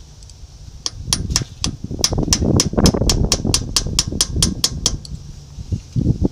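Hammer tapping a steel punch against the rear-hub adjusting nut of a 1963 Chevy C20 to tighten it: a quick, even run of sharp, ringing metal taps, about four a second. A duller knock comes near the end.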